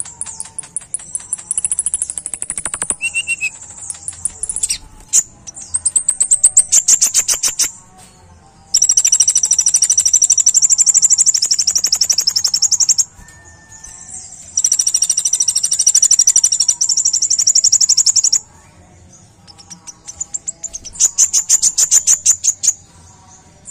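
Male Van Hasselt's sunbird (kolibri ninja) singing in high, rapid trills of fast repeated notes, in several bursts; the two longest last about four seconds each.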